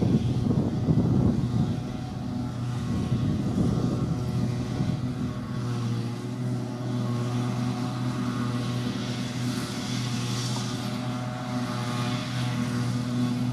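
Heavy diesel farm machinery running steadily: a rough rumble for the first few seconds settles into an even engine drone. A hiss swells and fades around ten seconds in.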